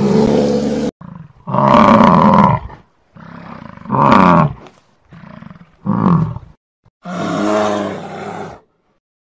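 A string of short, separately cut animal roars and growls of different lengths, with dead silence between some of them. The loudest come about two and about four seconds in.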